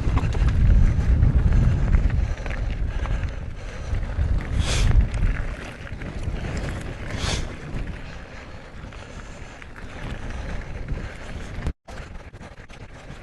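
Wind buffeting the microphone, strongest in the first few seconds. Two short sniffs come about five and seven seconds in, and the sound drops out for a moment near the end.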